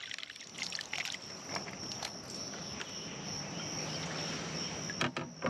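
A hooked largemouth-type bass being fought and landed beside a small boat: scattered splashes and clicks over a steady high insect drone and a low hum.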